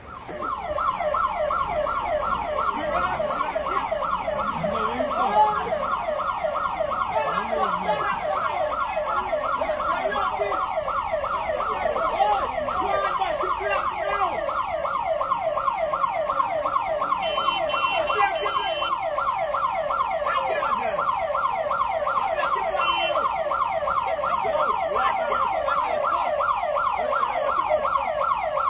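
Siren in a rapid yelp, its pitch sweeping over and over several times a second without a break.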